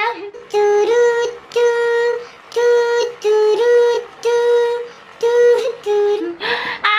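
A woman singing a string of short held notes, nearly all on the same pitch, in a high, slightly artificial-sounding voice.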